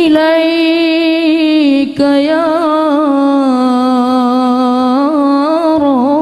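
Background vocal music: a single voice chanting long, held notes with wavering ornaments, with a brief break about two seconds in.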